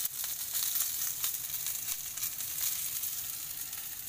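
Sausages sizzling in hot oil in a frying pan: a steady hiss with scattered crackles and pops.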